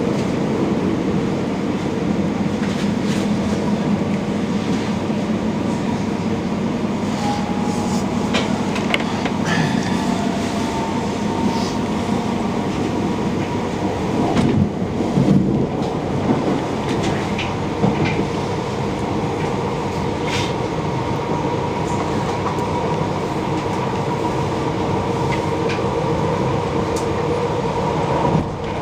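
Passenger train running, heard from inside the carriage: a steady rumble of wheels on the rails with a faint whine, and scattered clicks and knocks, a few louder ones about halfway through.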